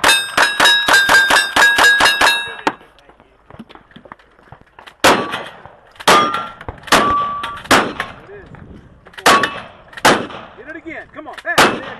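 About ten rapid shots from a lever-action rifle, each followed by the ringing of struck steel plates. After a short pause, about seven louder shotgun blasts at roughly one-second intervals knock down steel targets.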